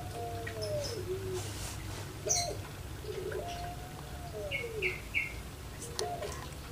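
Puter pelung (Barbary dove, Streptopelia risoria) cooing in repeated phrases. Each phrase is a short note, then a rolling burr, then a long drawn-out coo that falls away at the end, with a new phrase starting about every three and a half seconds. Three short, higher chirps come a little past the middle.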